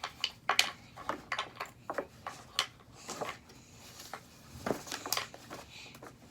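A series of light, irregular clicks and taps from objects being handled, some louder knocks about half a second in and near five seconds.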